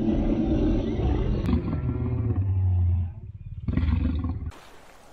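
Lion roaring: a long, deep roar that sinks lower and fades about three seconds in, then one shorter deep grunt about four seconds in.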